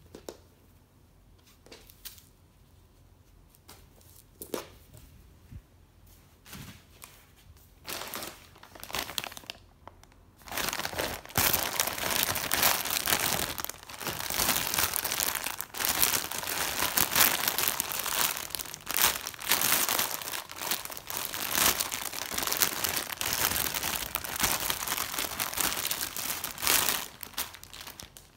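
A clear plastic bag wrapped around a plush doll crinkling loudly and unevenly as it is handled, starting about ten seconds in after a quiet stretch with a few light knocks.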